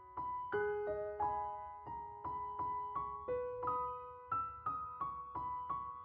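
Gentle background piano music: single notes struck about three times a second, each ringing and fading into the next.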